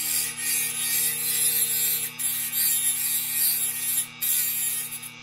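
Dremel rotary tool running with an abrasive cut-off wheel grinding through a thin metal rod: a steady motor hum under a hissing grind. The grind breaks off briefly about two seconds and four seconds in, as the rod comes off the wheel.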